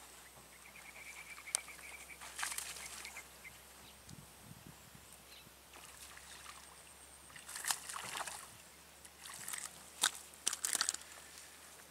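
A small snakehead hooked on a soft frog lure splashing and thrashing at the water's surface as it is reeled in: a few short splashes, the loudest near the end.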